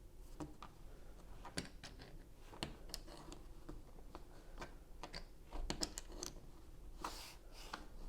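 LEGO pieces being handled and pressed together: irregular small plastic clicks and taps, with a short rustle about seven seconds in.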